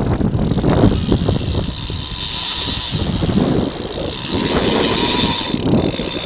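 Sport-fishing boat's engine running, with wind buffeting the microphone.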